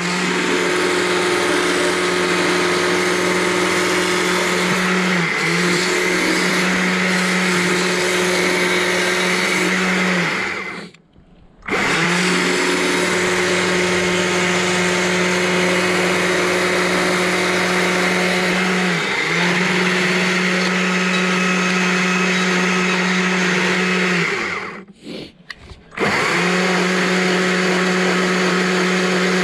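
Chainsaw with a narrow carving bar cutting into a small frozen log, running at a steady pitch. It stops twice and starts again, about eleven and twenty-five seconds in. Its pitch sags briefly a couple of times as the chain bites into the wood.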